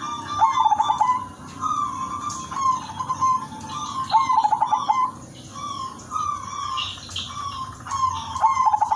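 Zebra dove singing its cooing song: a rapid stuttering run of notes, then drawn-out coos. The stutter comes three times, about every four seconds. Higher-pitched chirping of other small birds runs behind it.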